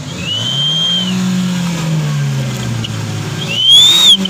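Car engine revved with a turbo-whistle exhaust tip fitted, each rev bringing a short rising whistle from the tailpipe. The first whistle comes early; the second, near the end, is louder and comes with a hiss of exhaust.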